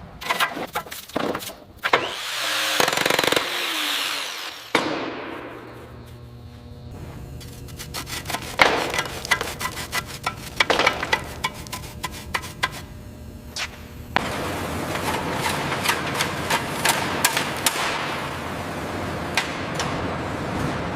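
Tool work on the engine's metal: stretches of steady abrasive scraping noise broken by many sharp taps and knocks.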